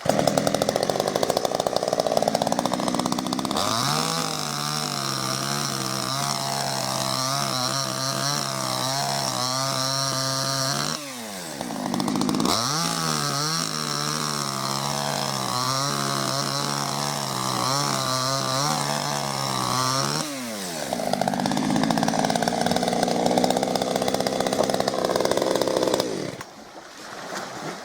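Small two-stroke petrol chainsaw cutting dry wood. The engine is held at a steady high pitch, is released twice with a falling note, about 11 seconds in and again about 20 seconds in, and runs rougher near the start and near the end.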